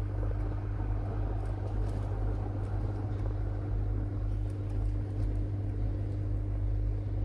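Steady low background hum, with a few faint, sparse clicks from a LaGard four-wheel combination lock dial being turned.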